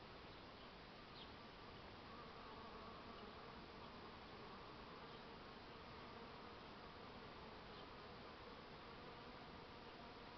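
Honey bees buzzing faintly as they forage among bottlebrush flowers: a steady hum that wavers slightly in pitch.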